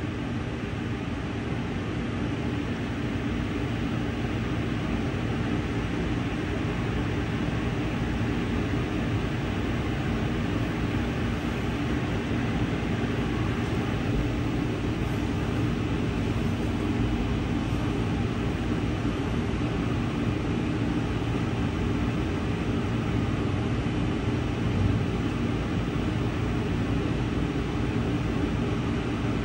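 Steady hum inside a standing Amtrak passenger coach: the car's air-conditioning and onboard power running while the train waits, with no distinct events.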